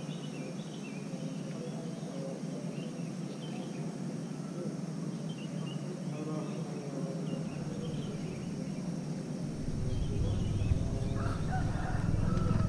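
Chickens clucking and small birds chirping in the background. About ten seconds in a low rumble comes up and becomes the loudest sound.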